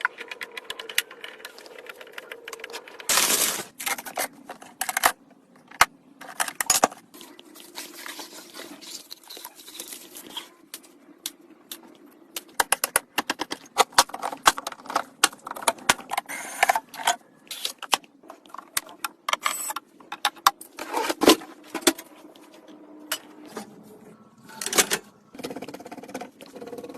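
Computer parts being handled and fitted during a PC build: an irregular run of sharp clicks, snaps, taps and scrapes, with a few louder bursts of clatter.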